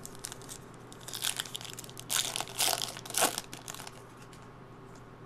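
Plastic trading-card pack wrapper crinkling as it is handled, in several short bursts, the loudest about three seconds in, then stopping.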